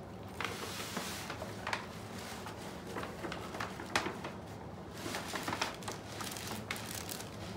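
Tissue paper rustling and crinkling as hands rummage inside a paper gift bag, with scattered sharp crackles.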